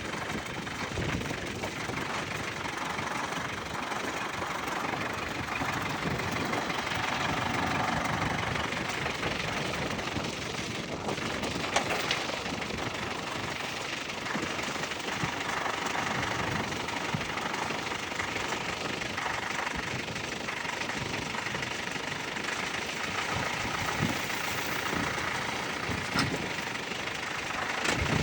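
Diesel engine of a 1996 Ford 555D backhoe running steadily.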